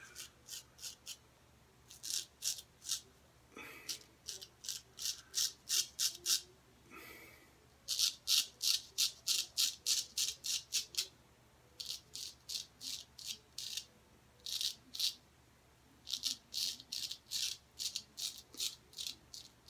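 Straight razor scraping through lathered stubble in quick, short strokes, about four a second, in runs of several strokes with brief pauses between.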